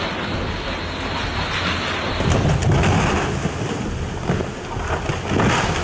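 Heavy rain and rushing floodwater, a dense steady roar with deep rumbling swells about two seconds in and again near the end.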